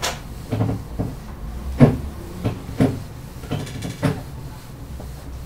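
A whiteboard being wiped with an eraser: a series of irregular rubbing strokes and light knocks, one every half second to a second, with a brief squeaky rub about three and a half seconds in.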